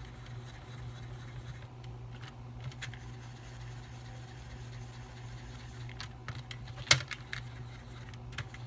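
Light tapping and clicking of a paintbrush against a palette while watercolour paint is mixed, with one sharp click about seven seconds in. A steady low hum runs underneath.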